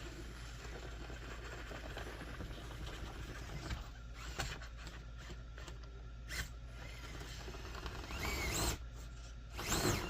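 Small electric motor and gear drivetrain of a TRX-4M-based 1/18 RC rock crawler whining as it climbs, its pitch rising and falling with the throttle near the end, over a steady low hum.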